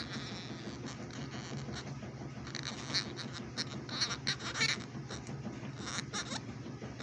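Pet parrot giving a run of short, high squawks and chatter in the middle of the stretch, over a steady low hum.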